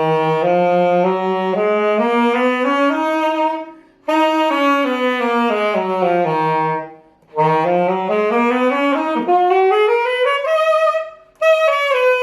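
Saxophone playing the Aeolian (natural minor) scale as stepwise notes, fingered as E-flat major from la to la. It climbs an octave, comes back down, climbs again and starts down once more, with a brief breath between each run.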